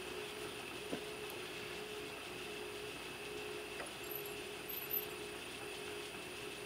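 Milling machine spindle running steadily with a constant gear whine as a tool turns in a hole in a steel part, with a few faint ticks.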